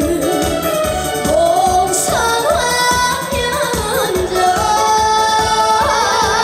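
A female singer performing a Korean song live, holding notes with a wide vibrato over accompaniment with a steady beat.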